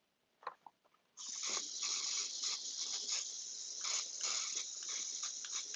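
A couple of faint clicks, then from about a second in an airbrush sprays paint with a steady, slightly uneven hiss of air.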